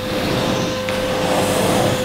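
Kärcher VC 6 bagged canister vacuum cleaner running at about half suction, a steady motor whine over rushing air, as its floor nozzle is pushed across thick carpet.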